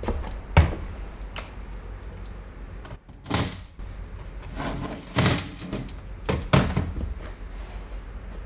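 Hard knocks and short scraping clunks of a ZF6HP26 transmission's valve body and metal parts being handled and set down on a steel workbench. There is a sharp knock about half a second in, then scrapes and clunks about every one to two seconds.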